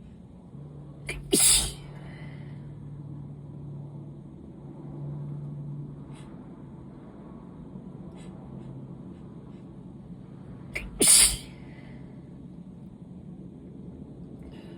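Two allergy sneezes about nine seconds apart, each a short, loud burst that follows a quick catch of breath.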